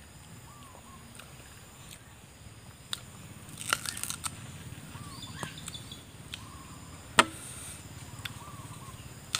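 Bites into a raw green banana: a short cluster of crisp snaps about four seconds in, with another single sharp snap a few seconds later.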